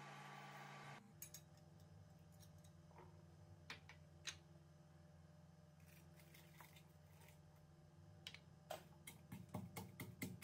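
A steady hiss and hum from a pot on an induction hob, cut off after about a second. Then sparse light taps and clicks as chillies are dropped into a wooden mortar, and from about nine seconds in, quick repeated knocks of a pestle pounding in the wooden mortar.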